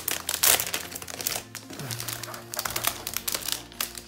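Clear plastic wrapping crinkling and rustling in irregular bursts as a keyboard in its bag is handled and unwrapped, over background music.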